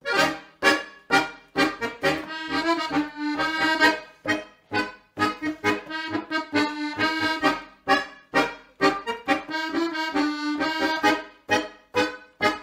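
Lively background music with a quick, bouncy rhythm of short struck notes, starting abruptly.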